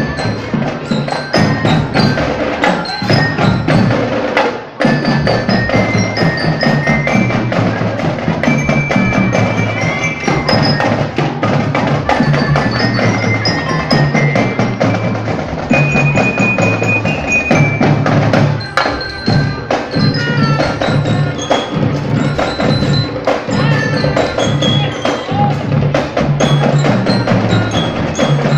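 School marching band playing a tune: a high, bell-like mallet melody such as a bell lyra over a steady beat of drums. The playing breaks off briefly about five seconds in.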